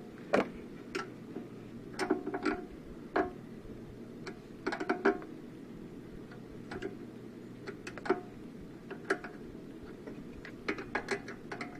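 Scattered light metallic clicks and clinks, some single and some in quick runs of several, from hand tools and metal parts being handled while a snowblower carburetor is fitted, over a low steady background hum.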